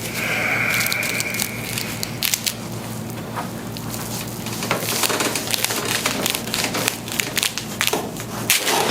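A run of crackling clicks and pops during a chiropractic Y-strap spinal adjustment, typical of spinal joints cracking as the spine is pulled and decompressed. A brief rush of noise comes at the start, and a sharper pop comes near the end.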